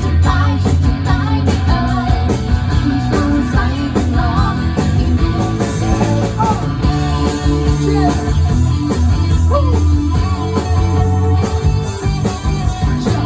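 Live band playing rock music through a PA during a sound check, guitar to the fore over a heavy bass, with a singing voice.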